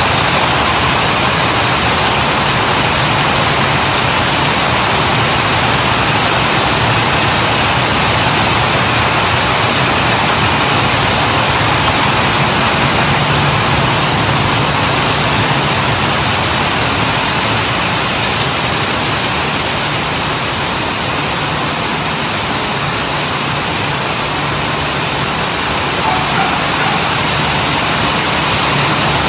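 Steady, dense mechanical noise of many cup-chain making machines running at once.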